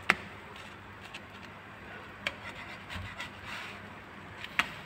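A spatula tapping and scraping against a nonstick frying pan while pancakes are lifted and flipped: a sharp click near the start, a lighter tap about two seconds in and another sharp click near the end, over a faint steady hiss.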